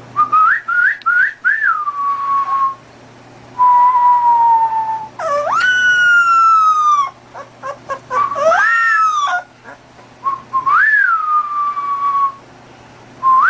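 Newborn puppy giving high, whistle-like howls: about five long, pure-pitched calls, each sliding up and then gliding slowly down, the first broken into a few short rising yips.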